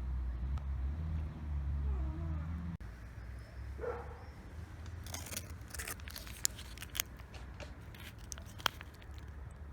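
A cat meowing, one short call about four seconds in, over a low rumble that stops suddenly near the three-second mark. Then a run of sharp clicks and taps.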